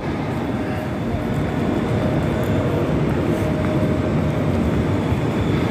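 Steady low rumble of metro-station background noise, with no distinct events standing out.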